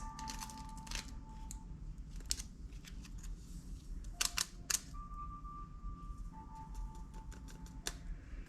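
Hand-played slime, giving sharp irregular clicks and pops as the air trapped in it bursts while it is squeezed and stretched.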